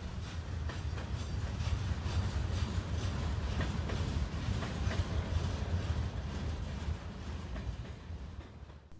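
Freight train cars rolling past: a steady low rumble of the train with scattered clanks and clicks from the wheels, fading near the end.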